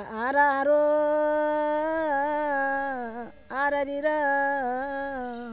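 A single unaccompanied voice holding long, slightly wavering sung notes in two phrases, with a short break about three seconds in.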